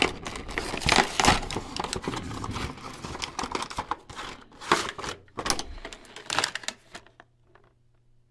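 Cardboard box flap being torn open and a clear plastic blister tray of die-cast cars slid out: a dense run of crackling, crinkling and clicking, falling quiet near the end.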